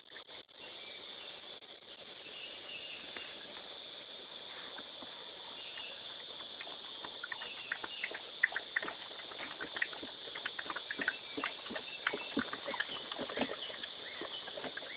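Steady high chirring of crickets or other insects, joined from about halfway through by a rapid, irregular patter of small clicks and scuffs that grows louder.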